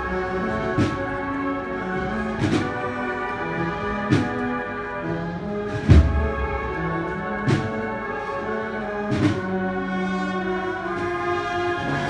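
Cornetas y tambores band (bugles and drums) playing a slow processional march. Sustained bugle chords sound over drum strokes that fall about every second and a half to two seconds, with a heavy bass-drum hit about halfway through.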